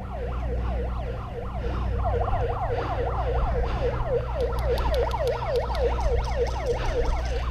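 A siren wailing in a fast yelp, its pitch sweeping up and down about three times a second, over a steady low hum. From about halfway through, sharp clicks sound on top of it, typical of airsoft guns firing.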